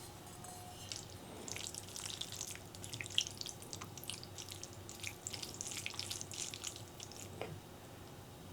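Wet, sticky clicks and squelches from saucy black bean noodles, dense for several seconds and thinning out near the end.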